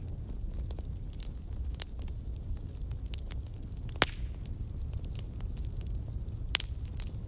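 Chicken dry roast frying in a pan as it is stirred with a spatula: scattered crackles and sharp clicks over a steady low hum, with one louder click about four seconds in.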